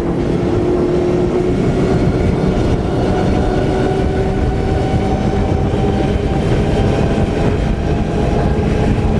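Four Mercury Racing 450R supercharged V8 outboards running hard at high throttle, a steady engine drone that climbs slightly in pitch as the boat speeds up. Mixed with rushing water from the wake and spray.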